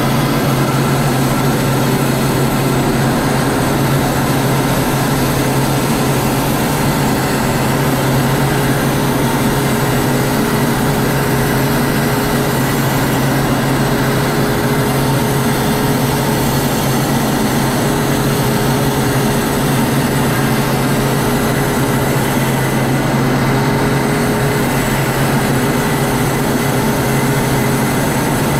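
Steady cockpit noise of a jet in flight, heard from inside the canopy: engine drone and rushing air, with a low hum and a faint steady tone above it that do not change.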